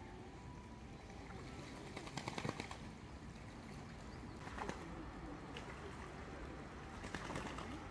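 Ducks bathing in shallow river water, splashing and flapping their wings in three short bursts: about two seconds in, near the middle, and near the end.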